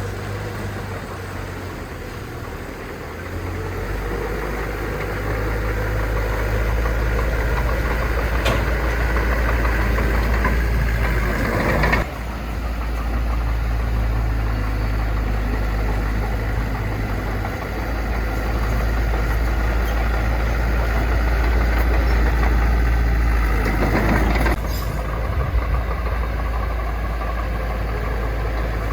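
Heavy diesel engine of earthmoving machinery running steadily with a deep rumble, changing abruptly twice.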